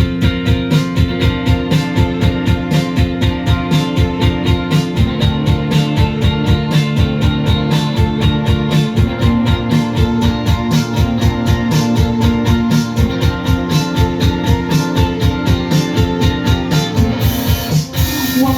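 A rock band playing live: an instrumental passage of guitar and bass over a steady drum beat of about four hits a second, dipping briefly near the end.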